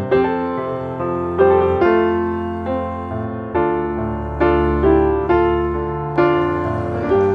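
Background music played on piano: gentle chords, each struck and left to fade before the next.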